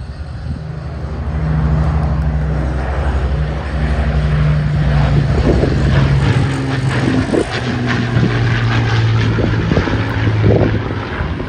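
Avro Lancaster bomber's four Rolls-Royce Merlin piston engines droning in a low flypast. The drone swells over the first couple of seconds, then drops a little in pitch as the bomber passes.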